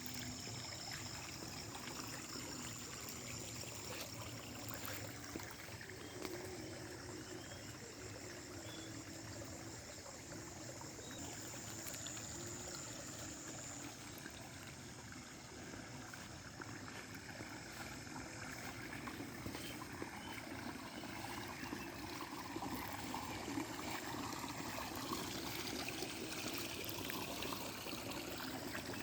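Water flowing and trickling steadily through rice paddies, with faint high steady tones above it in the first half.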